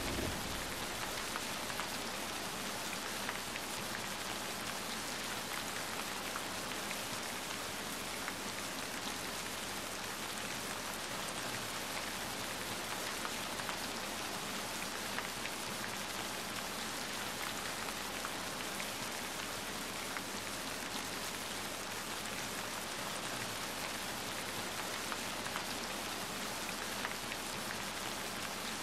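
Steady rain falling, an even hiss with scattered faint ticks.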